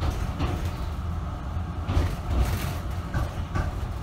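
Tram running on its rails, heard from on board: a steady low rumble with knocks and clatter, the loudest about two seconds in.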